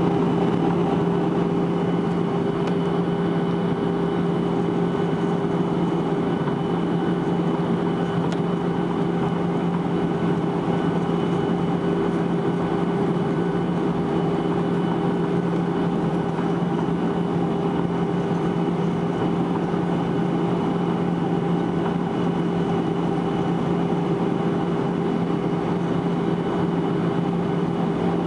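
Boeing 737-800 cabin noise in flight, heard from a window seat over the wing: the steady drone of its CFM56-7B jet engines and the rush of air over the fuselage. A constant low hum runs beneath a fainter high whine.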